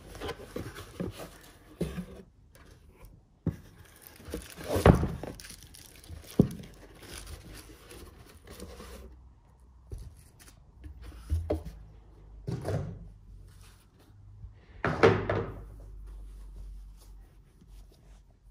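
Rustling of linen dust bags and dull thuds and knocks as bagged leather shoes are lifted out of a cardboard shoebox and set down. The handling comes in irregular bursts, the loudest twice, about five seconds in and about fifteen seconds in.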